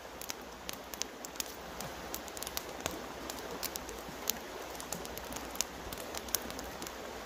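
Small wood campfire crackling, with irregular sharp pops over a steady rush of flowing river water.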